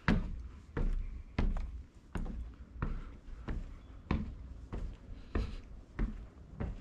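Footsteps of a person walking up wooden steps and across a plank porch: about ten even steps, one roughly every 0.6 seconds, each a short knock with a low thud.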